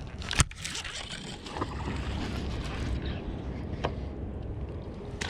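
Steady low rumble of a boat on the water. There is a sharp click about half a second in, followed by a couple of seconds of hiss, and a few fainter clicks later.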